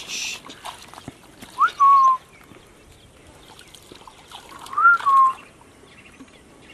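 A man whistling at a woman to catch her attention, twice: each time a quick upward glide followed by a shorter, slightly lower held note, the first about one and a half seconds in and the second about five seconds in.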